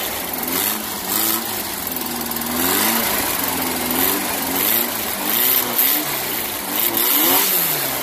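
1835cc VW air-cooled flat-four engine revved by hand at the carburetor, its pitch rising and falling again and again about once a second, with one longer rev a little after two seconds in and a fall near the end. It is the engine's first run after sitting for 29 years.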